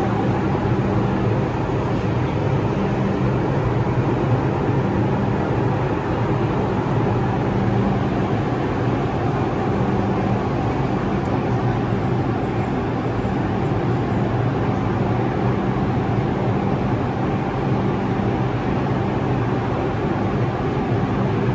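A New York City subway train standing still with its doors open, its onboard equipment running. It makes a steady hum with two low tones over an even rushing noise.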